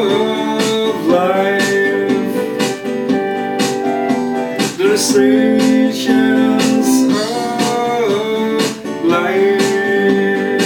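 Song music with guitar and keyboard over a steady beat, its melody notes sliding up into long held tones.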